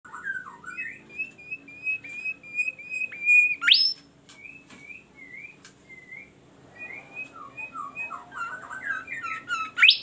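Caged bimoli songbird singing: a string of short whistled notes with a loud rising whistle a little past three and a half seconds in, then softer notes, then a quickening run of notes that ends in another loud rising whistle.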